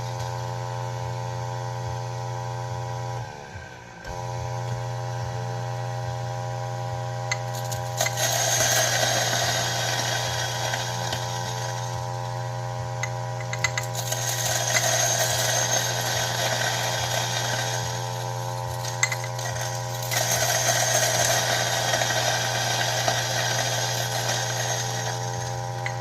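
Electric burr coffee grinder's motor running with a steady hum; it winds down and starts up again about three seconds in. From about eight seconds in, coffee beans crackle and crunch in the burrs in three spells as they are slow-fed a few at a time.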